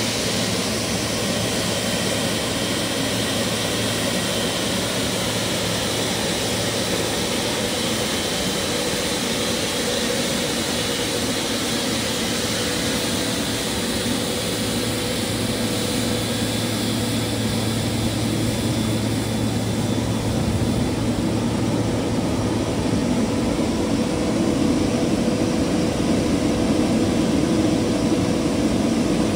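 GE90-115B turbofan of a Boeing 777-300ER running steadily at idle after its start: a continuous rush with steady whining tones, growing a little louder in the last third.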